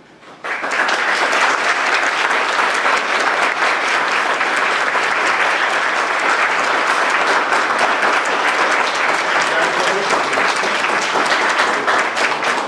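A roomful of people applauding: dense, even clapping that starts suddenly about half a second in and holds steady.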